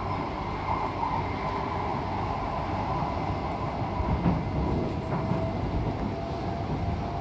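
Running noise inside an SMRT C151C metro car at speed: a steady rumble of wheels on rail with a faint, steady whine. There is a slight swell about four seconds in as a train passes on the neighbouring track.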